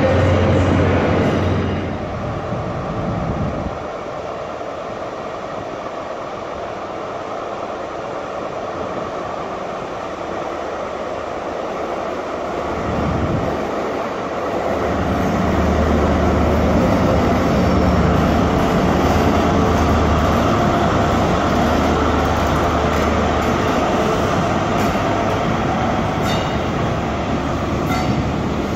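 Diesel engine of a High Speed Train (InterCity 125) Class 43 power car running, a low steady drone. The drone is heard briefly at the start. It drops away after about two seconds into quieter station noise, then returns strongly about halfway through and holds to the end as the train moves along the tracks.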